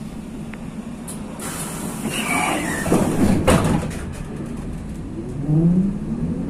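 Inside a ZiU-682 trolleybus: a burst of compressed-air hiss lasting about two seconds that cuts off sharply. Then, from about five seconds in, the traction motor's whine rises in pitch as the trolleybus starts to pull away.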